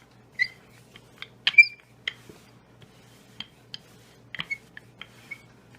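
Rolling pin working dough out on a floured board: a string of short, irregular clicks and squeaks, the loudest about a second and a half in.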